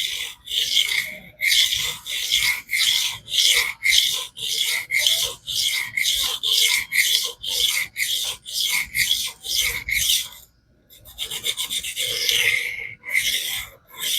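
Stainless steel knife blade scraped back and forth across a 400-grit diamond sharpening plate in freehand strokes, a rasping sound about two strokes a second. The strokes stop briefly about ten and a half seconds in, then resume with a quick run of short strokes.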